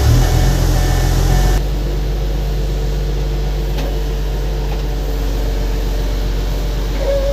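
Steady low drone of idling airport ground machinery beside a parked airliner. A brighter, hissing noise in the first second and a half cuts off abruptly.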